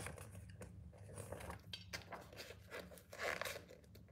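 Paper rustling in several short bursts as an instruction booklet is handled and opened, the clearest a little past three seconds in.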